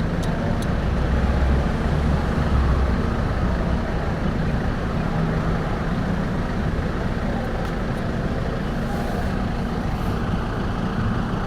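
Steady low mechanical hum and rumble, even throughout, with a few faint ticks.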